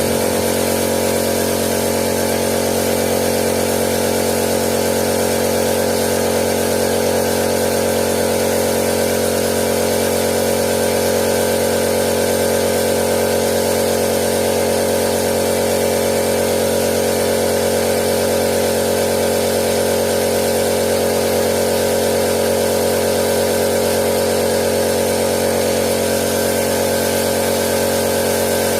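Paint-spraying equipment running steadily while primer is sprayed: a constant motor hum with a high hiss over it.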